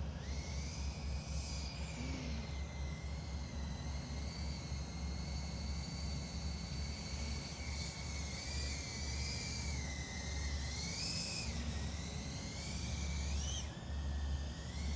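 FPV racing quadcopter's motors and propellers whining in flight, the pitch sliding up and down with the throttle, with brief rises near 8, 11 and 13 seconds in. Under it runs a steady low hum.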